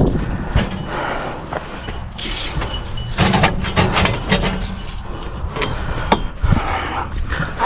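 Rummaging and handling of things at a pickup truck: a string of scattered clicks, knocks and small rattles over a low steady hum.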